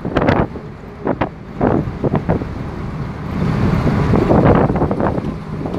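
Wind buffeting the microphone in irregular gusts over the steady rumble of a moving vehicle. The rushing noise grows fuller about halfway through.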